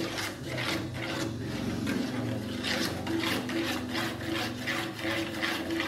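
Metal spoon scraping round the bottom of a small aluminium saucepan in quick, even strokes, about three a second, stirring melted white chocolate and cooking oil so the last lumps dissolve.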